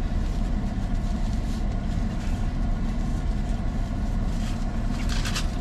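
Steady low rumble of an idling car engine heard from inside the cabin, with a few faint crackles near the end.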